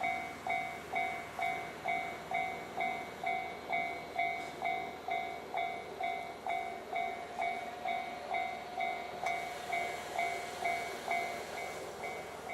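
Japanese level crossing warning alarm ringing, an electronic two-tone ding repeating about twice a second: the crossing is signalling an approaching train.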